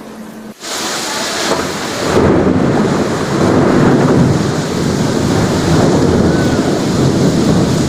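Thunder rumbling over heavy rain: the rain hiss sets in suddenly a little over half a second in, and about two seconds in a long, loud rumble of thunder comes in over it and keeps going.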